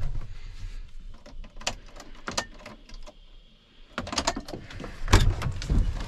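Clicks, knocks and key jangles of a semi-truck cab's key and door being handled, with no engine sound because the battery switch is still off. The handling goes quiet briefly, then picks up again with a run of knocks.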